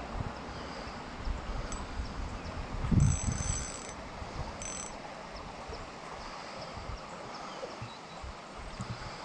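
Ultralight fishing reel ratcheting and clicking while a hooked large bass pulls on the line. There are two short, sharper bursts about three and four and a half seconds in, the first with a low thump, over a steady rumble of wind and handling.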